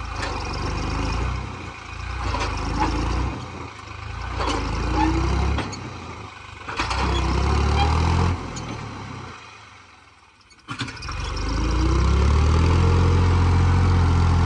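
New Holland 3630 tractor's diesel engine labouring in repeated revving surges while it pulls a loaded manure trolley through soft soil. The engine drops away almost to nothing about ten seconds in, then after a sharp click it comes back loud and steady, pulling hard.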